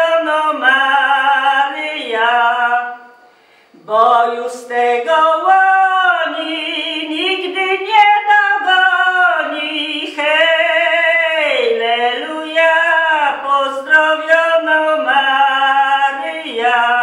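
An elderly woman singing a Polish folk carol solo and unaccompanied, her voice sliding between held notes, with a short pause for breath about three seconds in.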